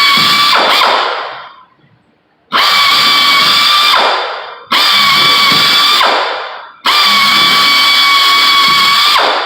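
Power drill pre-drilling holes for a rust-repair patch on a car body. The motor runs at a steady high whine and spins down whenever the trigger is released. It is restarted three times, each run lasting about one and a half to two and a half seconds.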